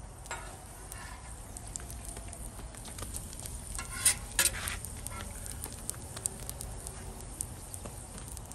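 Flatbreads sizzling on a hot flat-top griddle, a steady frying hiss with scattered pops. A metal spatula scrapes and clatters on the griddle plate in a brief louder burst about four seconds in.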